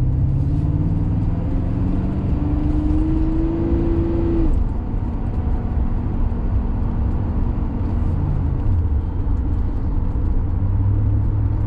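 Porsche 928S V8 running under way, its engine note rising for about four seconds and then dropping off abruptly, then running steadily.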